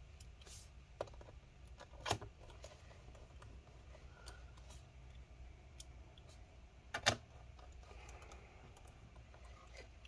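A few light metallic clicks of small laptop case screws and a precision screwdriver being handled against an aluminium bottom case. The loudest is a quick double click about seven seconds in, with another about two seconds in, over a low steady hum.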